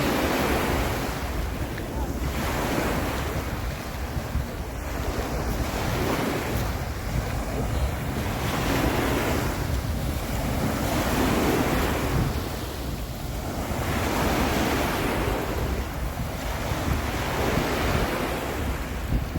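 Sea waves breaking and washing up on a beach in a steady rhythm of swells about every two seconds, with wind rumbling on the microphone.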